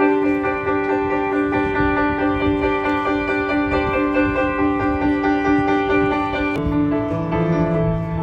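Background music: sustained keyboard or piano chords, with a change of chord and a lower bass note coming in near the end.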